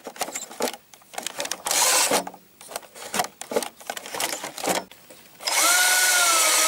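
Clicks and knocks, then about five and a half seconds in a small drill-like motor starts and runs steadily, its whine rising in pitch: the vehicle being started.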